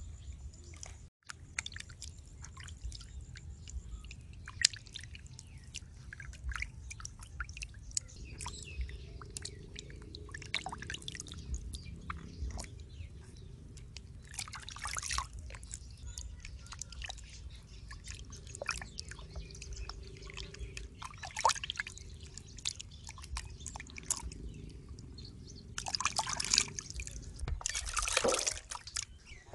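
Hands washing and squeezing raw pig intestines in a bowl of water: irregular splashing, dripping and squelching, with longer, louder splashing bursts midway and near the end.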